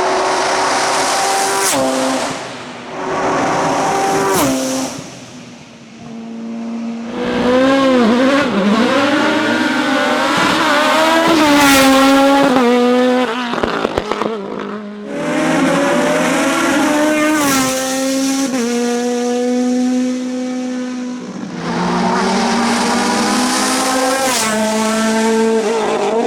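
Racing car engines of hill-climb formula and CN sports-prototype cars at full throttle. The pitch climbs hard and then drops at each quick gear change. The sound comes in several runs, with short lulls between them.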